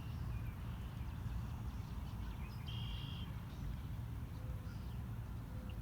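Steady low outdoor rumble of wind and distant traffic, with a short high bird call about three seconds in.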